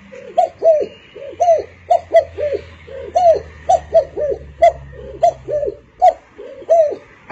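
Dove cooing: short notes that rise and fall, in quick pairs and threes, about twenty in all.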